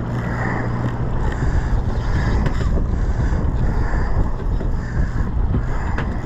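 Sportfishing boat's engine running with a steady low hum, under wind buffeting the microphone, with a single sharp click about six seconds in.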